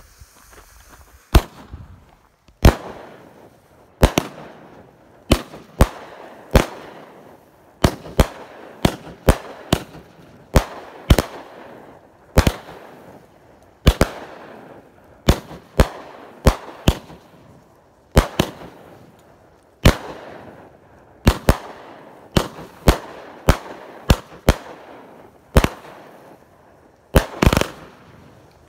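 A Mad Ox Rampage in the Sky 200-gram firework cake firing its shots: a string of loud, sharp bangs that starts about a second in and comes about one or two a second, some in quick pairs or triplets.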